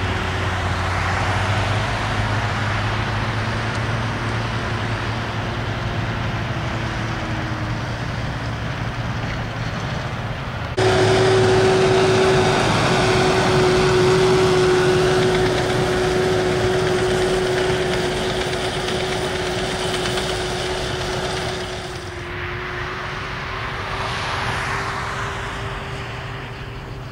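Farm tractor's diesel engine running steadily under load, pulling a Bergmann muck spreader whose rear beaters are throwing manure, with a steady whine from the machinery. The sound jumps louder about 11 seconds in as the outfit passes close by, and drops back about 22 seconds in.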